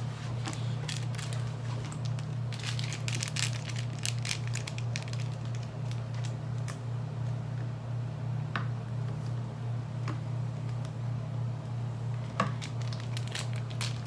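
Small instant-ramen seasoning packets crinkling and being torn open by hand: a busy run of sharp crackles for the first few seconds, then a few scattered ones, with a steady low hum underneath.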